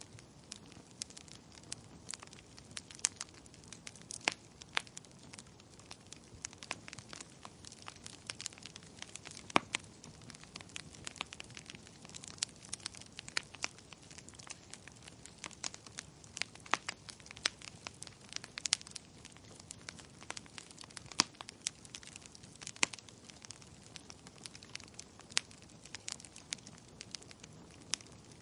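Wood fire in a fireplace crackling, with irregular sharp pops and snaps over a soft, steady hiss of burning.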